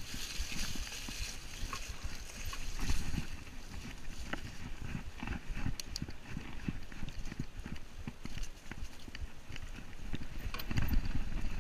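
Mountain bike ridden fast over rough ground: an irregular run of knocks, thumps and rattles as the bike and rider take the bumps. There is tyre hiss over leaf litter at the start and a louder stretch of thumps near the end.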